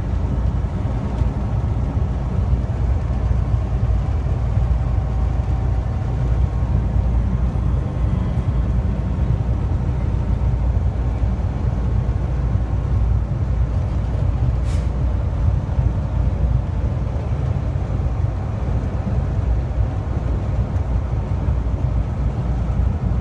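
Steady low rumble of a semi-truck at highway cruising speed, engine and road noise heard from inside the cab.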